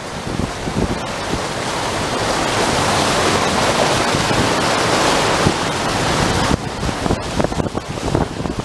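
Typhoon wind gusting hard against the microphone: a long gust swells over the first few seconds and drops off suddenly about six and a half seconds in, with the microphone buffeted throughout.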